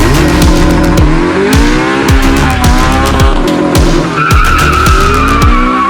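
Loud intro music with a heavy beat: deep sliding bass drums about every half second, with sharp percussion over layered synth tones. About two-thirds in, a high drawn-out whine comes in and slowly falls in pitch.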